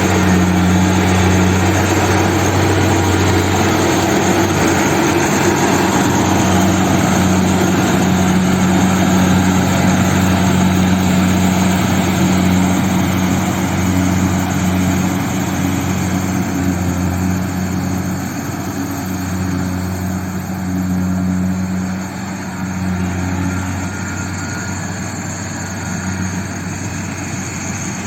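Kubota rice combine harvester's diesel engine running steadily, a low drone under the dense rushing noise of the working machine, easing off a little in the second half.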